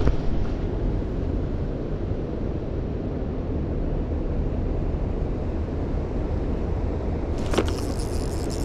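Steady low rumble of wind buffeting the microphone, with a brief high-pitched hiss near the end.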